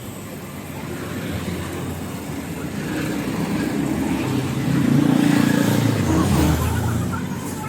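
A vehicle engine running, growing louder to a peak about five seconds in and then easing off.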